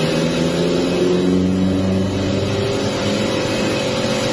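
An engine running steadily, its pitch shifting a little during the first couple of seconds.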